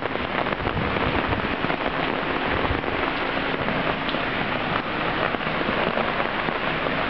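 Steady heavy rain falling on the garden.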